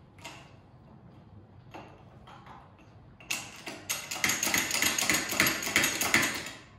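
Hand-pumped hydraulic bottle jack being worked to drive its ram, bending a steamed ash chair crest into a wooden form. A few separate clicks, then from about three seconds in a dense run of rapid metallic clicks and clanks from the pumping handle.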